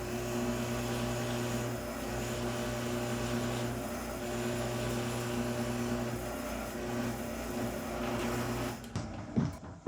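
Electric drill running steadily while boring a hole in wood, stopping about nine seconds in.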